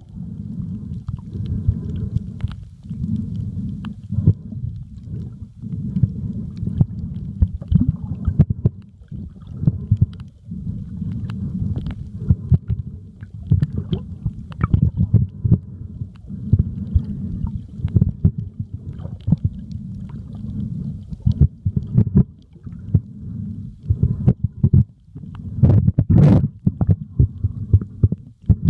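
Muffled underwater rumble of water moving against a submerged camera, with many scattered sharp clicks and crackles throughout and a louder click near the end.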